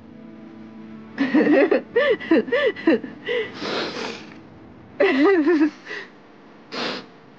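A person sobbing: shaky, wavering cries in two bouts, with breathy gasps and sniffs between them.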